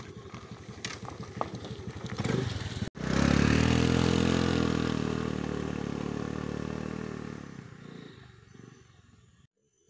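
Honda Dio scooter's single-cylinder engine. At first the scooter clatters and rattles as it bumps over rough ground. About three seconds in comes a steady engine note, loudest at first, that fades gradually as the scooter rides away.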